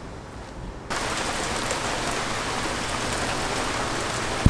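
Quiet room tone, then about a second in a steady hiss of heavy rain starts abruptly and keeps on. A single low thump comes near the end.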